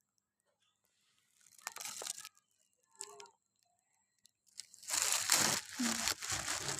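Crinkling and rustling of a plastic bag being handled: a few short bursts, then loud, continuous crinkling from about five seconds in.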